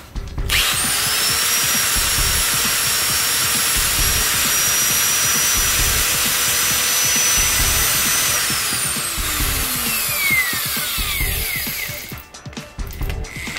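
Electric angle grinder free-running with no disc fitted, on a test run after maintenance: switched on about half a second in, it spins up quickly and runs with a steady high whine for about eight seconds, then is switched off and winds down over about three seconds, the whine falling in pitch.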